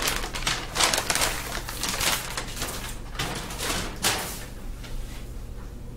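Rustling of fabric being handled, a string of quick swishes for about four and a half seconds that then dies down, over a low steady hum.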